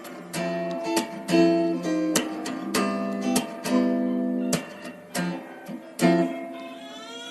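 Background music played on acoustic guitar, with strummed chords and plucked notes.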